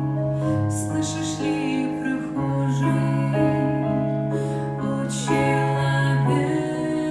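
Music: a slow church song on keyboard, held chords over long bass notes changing every second or two.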